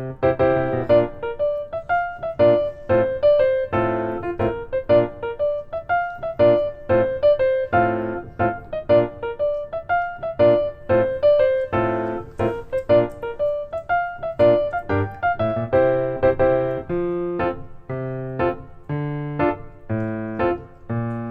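Background music: a piano melody played in a steady run of distinct notes, several a second, over a simple bass line.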